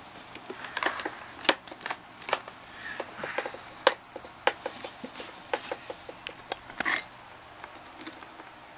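Clicks, knocks and rubbing from a Sony TC-200 reel-to-reel's case as it is handled and moved, with two sharper knocks and a quick run of light ticks in the middle.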